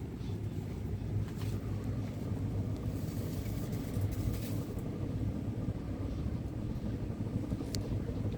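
52-inch ceiling fan running steadily: a low motor hum with a rumbling rush of air, and a faint tick near the end.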